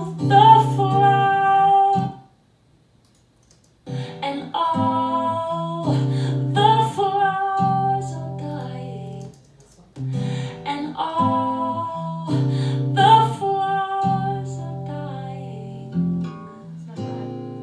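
Playback of a recorded female vocal with acoustic guitar, the same sung phrase auditioned over and over as vocal takes are compared: it cuts off about two seconds in, starts again after a short pause, and plays through twice more before a chord fades out near the end.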